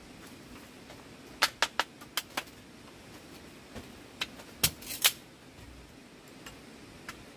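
Wood cooking fire crackling: a quick run of sharp pops about a second and a half in, then two louder ones around the middle, with a few fainter ones, over a faint steady hiss.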